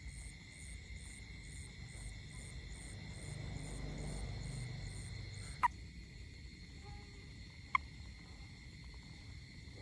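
Steady high-pitched animal chorus. A low rumble swells through the middle, and two short sharp chirps come about two seconds apart.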